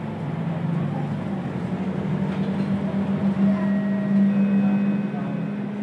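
Scania K230UB bus's five-cylinder diesel engine heard from inside the passenger cabin, pulling with its note climbing steadily and growing louder, then easing off near the end.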